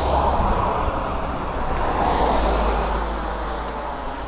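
A road vehicle going past: a rush of tyre and engine noise that swells and then fades, over a steady low rumble.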